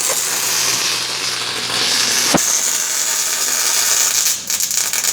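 Arc welder tack-welding steel: a steady crackling sizzle, "like cooking eggs", with one sharp click a little over two seconds in and a short dip just after four seconds.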